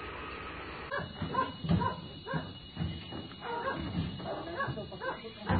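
Dogs shut in a crate barking and yelping over and over, in quick short calls starting about a second in, after a steady background hum.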